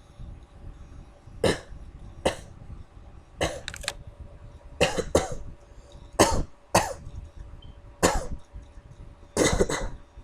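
A person coughing over and over: short, sharp coughs about every second, some coming in quick pairs or triplets.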